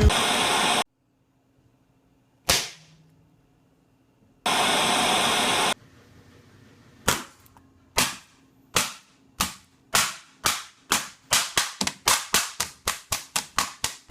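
Sharp bangs: one on its own, then a run that speeds up from about one a second to several a second. Two short bursts of steady hiss come before them.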